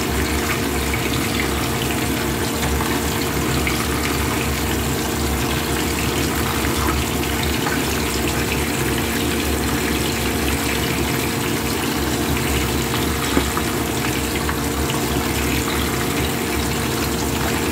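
Hot oil sizzling and bubbling steadily around several whole fish shallow-frying in a pan. A steady low hum runs underneath.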